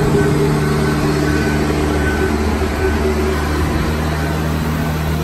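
A boat travel lift's engine and hydraulics running with a steady hum that eases a little about halfway through.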